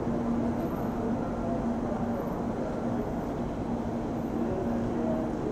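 Steady city traffic noise from the road below, with a low steady hum that drops out briefly now and then.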